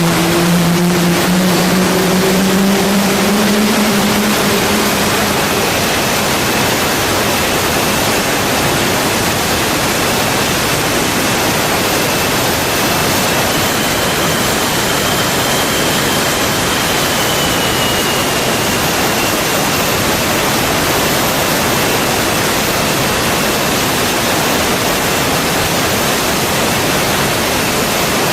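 T-7A Red Hawk's jet engine running, a loud steady rush of air with a faint high turbine whine. A low hum rises slightly in pitch over the first few seconds and then fades out.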